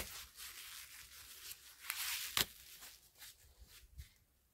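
Cocoyam leaves rustling as they are picked by hand, with two sharp snaps of leaf stalks breaking, one at the start and one about two and a half seconds in.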